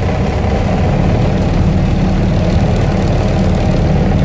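Old tandem truck's diesel engine idling steadily at about 800–900 rpm, heard from inside the cab, still cold just after a hard cold start at around 30 below.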